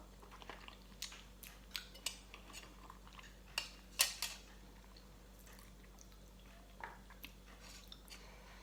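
Scattered light clicks and clinks of cutlery against a dish during a meal, the loudest a couple of sharp clinks about four seconds in.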